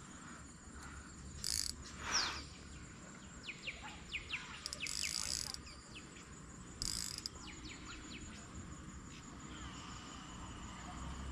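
Insects chirping in short high bursts every few seconds, with series of quick falling bird chirps among them.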